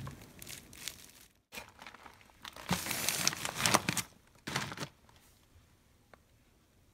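Plastic bubble wrap crinkling as it is wrapped around a small bottle. After a brief break, louder bursts of plastic packaging crinkling, fading out about five seconds in.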